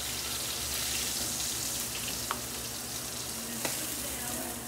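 Chicken pieces sizzling and frying in oil and butter in a large non-stick pan over high heat, browning. Two brief clicks sound over the steady sizzle about halfway through and again near three-quarters of the way.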